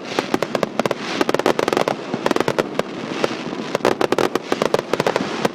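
Fireworks going off in a dense, rapid run of sharp crackling pops, many per second.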